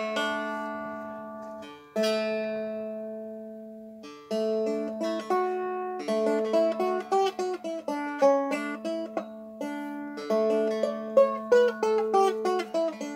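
Handmade mahogany strumstick (a three-string stick dulcimer tuned D-A-D) being strummed: three ringing chords, each left to die away, then from about six seconds in a quicker melody over the droning open strings.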